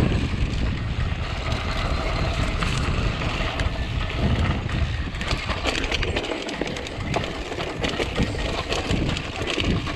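Mountain bike rolling down a dirt and rock singletrack: tyres crunching over the trail, with frequent rattling clicks from the bike over rough ground and a low rumble of wind on the microphone.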